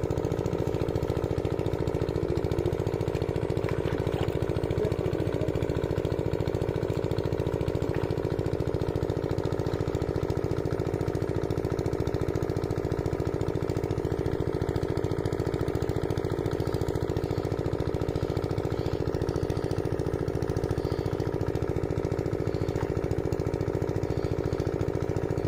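A small engine running steadily at constant speed, with an even droning note that doesn't change throughout.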